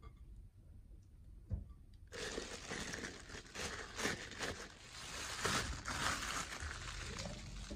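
Disposable plastic piping bag crinkling and rustling as thick frosting is scooped into it and the bag is handled and gathered up, starting about two seconds in.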